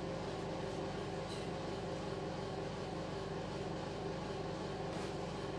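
Steady drone of a motor running at a constant speed, an even low hum with no changes.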